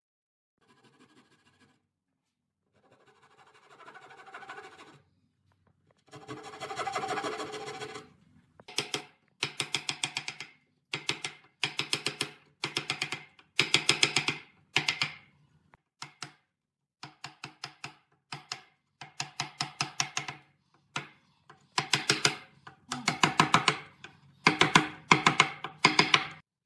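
Wooden mallet tapping a steel chisel in quick runs of light blows, cutting a hinge mortise into a pine board edge; each run lasts about a second, with a ringing note from the chisel. Softer scraping comes first, before the tapping starts about eight seconds in.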